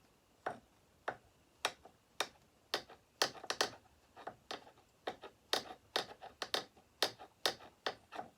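Sharp mechanical clicks, about two a second and sometimes in quick pairs, from hand work on a Husqvarna 266 chainsaw's adjustable oil pump as its settings are stepped through and checked.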